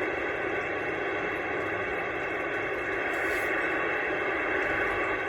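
Steady radio static hissing from an Anytone AT-6666 CB receiver with the squelch open, as a weak station keys up too faintly to be read.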